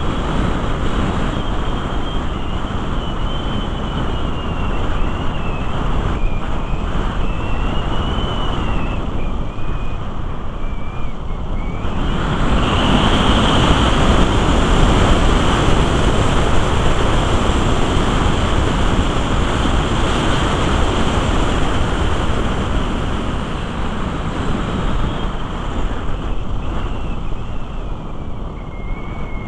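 Airflow rushing past the onboard camera of the Musger MG12a in flight, with a thin wavering high whistle over the rush. The rush swells louder about twelve seconds in, then eases back.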